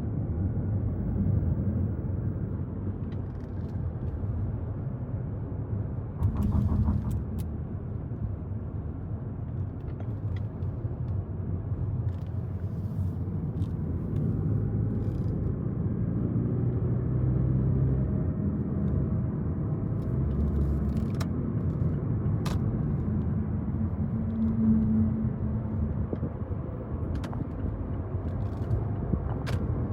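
Steady rumble of a car driving, engine and road noise, with a few faint clicks.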